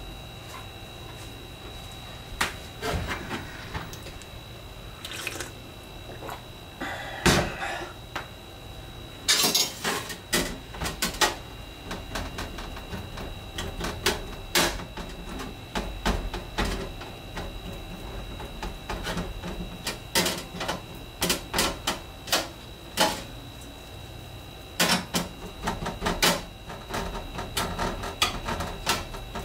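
Irregular clicks, taps and light clatter of a stainless steel tray and wire rack as a raw steak is handled and seasoned on it by hand.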